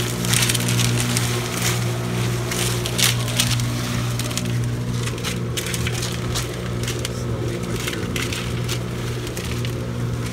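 Concrete mixer running with a steady hum, its drum turning a load of wet concrete and gravel that rattles and scrapes inside it.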